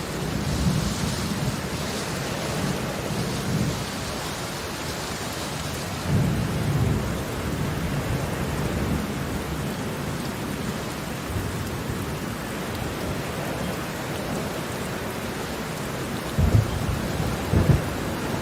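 Heavy rain falling steadily, with low rumbles of thunder rolling through a few times and two sharper, louder thunder claps close together near the end.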